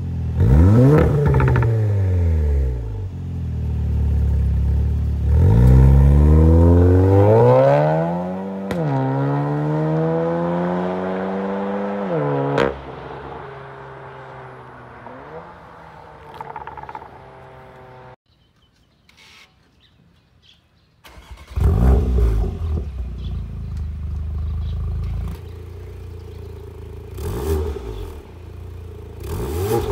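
Porsche Macan 2.0T's turbocharged four-cylinder, breathing through a catless downpipe and a valved Fi EXHAUST cat-back. It revs twice at a standstill, then accelerates away with the pitch climbing and dropping at two upshifts, and fades into the distance. After a brief quiet gap it is revved again several times from standstill.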